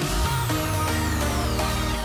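Electronic dance background music with a heavy sustained bass and a long falling synth sweep.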